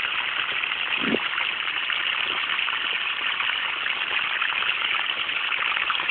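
Water running from a garden hose behind a shovel, a steady splashing gush.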